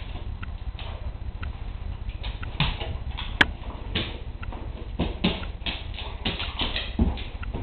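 A shepherd-mix dog sniffing and moving about on a hardwood floor while searching for scent, with scattered ticks and taps of claws and paws and one sharp click about three and a half seconds in, over a steady low rumble.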